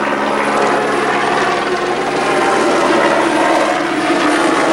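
Police helicopter flying low overhead on one of its circling passes, its engine and rotors sounding loud and steady.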